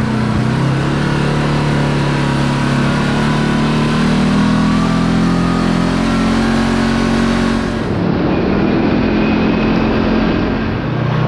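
Side-by-side UTV engine running steadily under way on a dirt trail, with tyre and wind noise. About eight seconds in the sound changes abruptly, losing its hiss.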